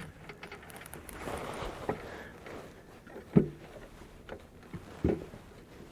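Howa 1500 bolt-action rifle being reloaded between shots: a few sharp clicks and clacks of the bolt being worked and a round handled, the loudest about halfway through.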